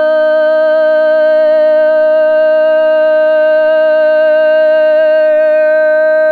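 A woman's voice holding one long, unbroken sung note with a slight waver, a toned invocation, over a steady lower tone.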